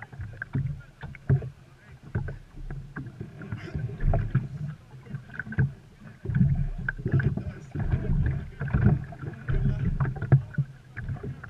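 Water splashing and knocking irregularly around a small watercraft, with uneven low thumps and short knocks and no steady engine note.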